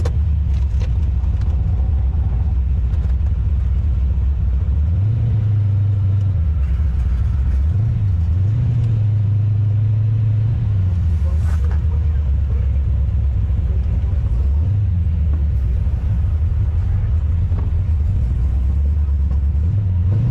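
Race car engine running hard under load, its low note stepping up and down as the driver gets on and off the throttle through the course.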